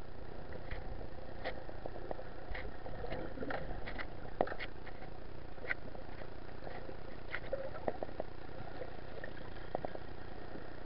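Muffled underwater noise from a camera held under the sea: a steady low rumble with many small scattered clicks and crackles.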